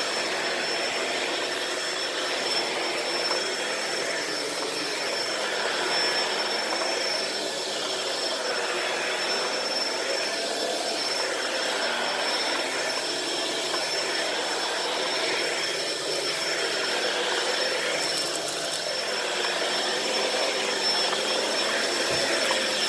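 Shark Powered Lift-Away upright vacuum running steadily on carpet: an even motor rush with a constant high whine.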